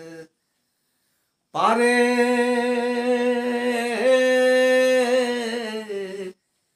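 A man's voice singing a Bengali folk song unaccompanied: after a second of dead silence he slides up into one long held note, steps up slightly in pitch about four seconds in, and breaks off near the end.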